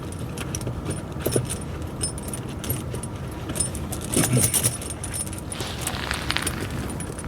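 Steel pewag Doppelspur tractor tire chain links clinking and rattling as the chain is worked over the tire tread, in scattered clusters, over a steady low hum.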